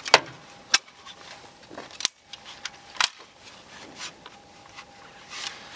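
Handling noise from a GHK AKS-74 gas-blowback airsoft replica as gloved hands grip and work it, checking its steel receiver and fittings for play: four sharp clicks in the first three seconds, with faint rubbing and rattling between them.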